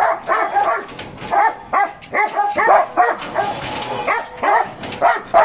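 Caged dogs barking repeatedly, short sharp barks coming about twice a second.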